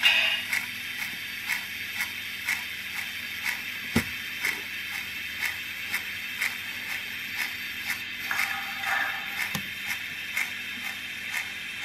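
Model steam locomotive running slowly, giving regular sharp clicks about twice a second over a steady hiss, with a low thump about four seconds in and another near the end.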